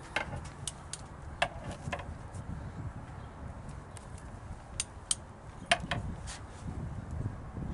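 Irregular sharp metallic clicks from a large 3/4-inch-drive torque wrench being worked on the cylinder-head bolts, over a low rumble.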